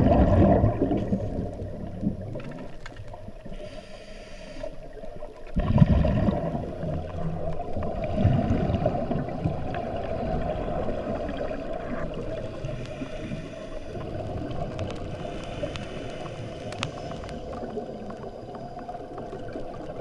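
Underwater sound of scuba diving: a diver's exhaled regulator bubbles rumble and gurgle in bursts, one at the start and another about six seconds in, over a steady muffled underwater drone.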